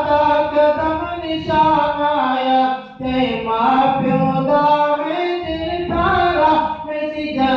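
A man chanting a Saraiki nazm (poem) in a melodic, sung recitation without accompaniment, holding long notes, with a short breath pause about three seconds in.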